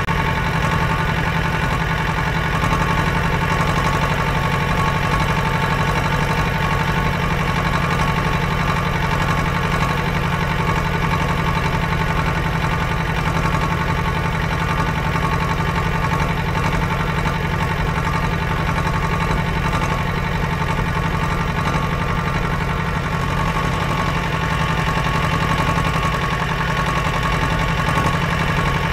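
An engine running steadily at a constant speed, an even drone that does not change.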